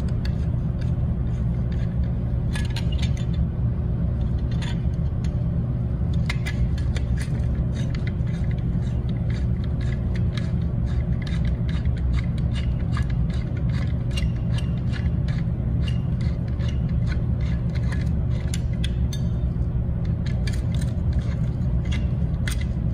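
Small metallic clicks and light scrapes from a T-handle hex key turning a screw in a metal band heater's clamp fitting, coming irregularly every fraction of a second, over a loud, steady low hum.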